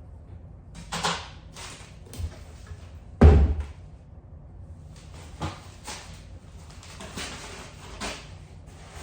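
A handful of knocks and thumps indoors, the loudest a heavy thud about three seconds in, with lighter knocks around one second and in the second half.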